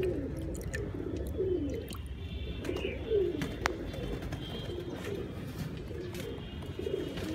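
Domestic pigeons cooing continuously, a run of low, falling coos that overlap one another.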